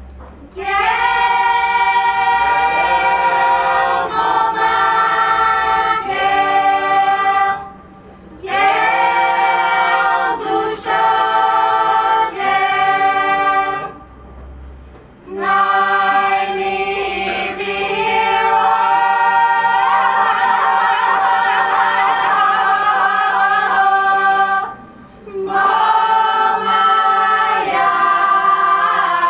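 Mixed choir of women's and men's voices singing a cappella in sustained chords. The phrases are separated by three short pauses, and about two-thirds of the way through a high part weaves ornaments over the held chord.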